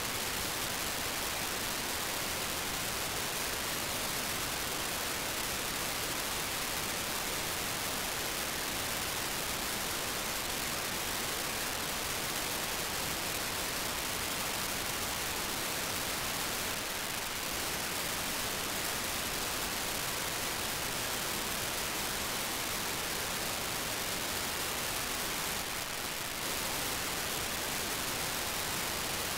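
Steady hiss of static from an RTL-SDR receiver demodulating FM at 437.5 MHz, while it listens for the BlueWalker-3 satellite's FSK 2400 beacon. The hiss is brighter in the high end and dips slightly twice, briefly.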